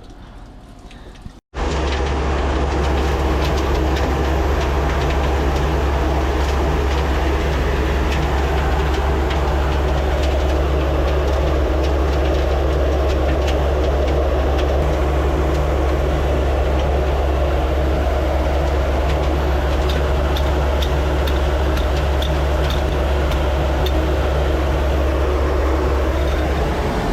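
An engine running steadily at a constant speed, a loud low hum under a rough noisy wash; it starts abruptly about a second and a half in, right after a brief dropout, and stops just before the end.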